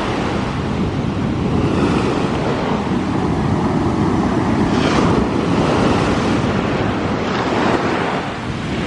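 Big sea waves breaking and washing up the beach, with wind buffeting the microphone. The hiss of the surf surges about five seconds in and again at about seven and a half seconds.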